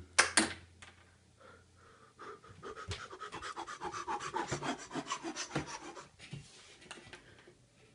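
Quick, breathy panting close to the microphone, with rubbing and rustling as the phone is jostled. It builds up about two seconds in and fades out near the end.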